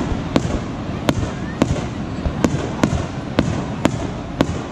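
Fireworks shells bursting in the sky: a run of sharp bangs at about two a second over a steady background hiss.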